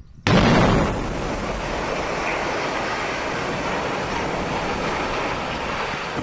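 Explosive demolition of a large factory building: a sudden loud blast, then a steady rumbling roar as the structure comes down.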